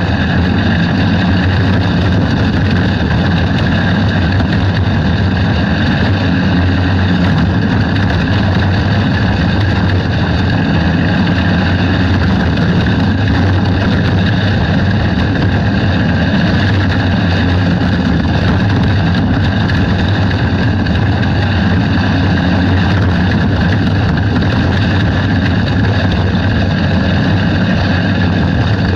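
Outlaw dirt kart's small engine running hard at racing speed, heard loud and steady from on board, with other karts' engines close by.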